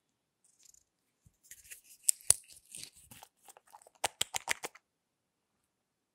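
Small plastic makeup bottles and their caps being handled: scratchy rustling with two sharp clicks about two seconds in, then a quick run of about six clicks near the four-second mark, as a cap is worked on and off.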